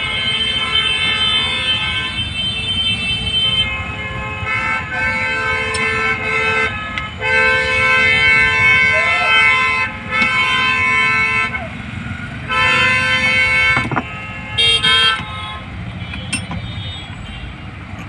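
A vehicle horn sounding in a series of long blasts at one steady pitch, some several seconds long, over steady traffic noise.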